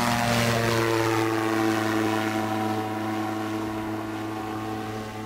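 Propeller engine of an ultralight aircraft at takeoff power as it passes low and climbs away. The pitch drops as it goes by, and the sound fades steadily over the last couple of seconds.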